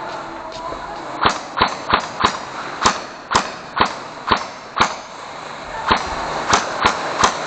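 Toy-gun fire in a mock battle: about a dozen sharp snaps in quick, irregular succession, starting about a second in, with a short pause near the middle.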